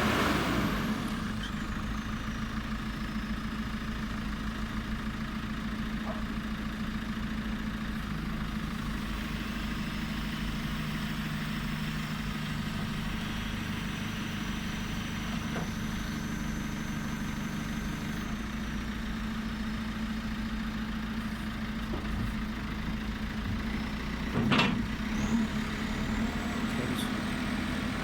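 JCB 3CX backhoe loader's diesel engine idling steadily, with a brief louder clatter near the end.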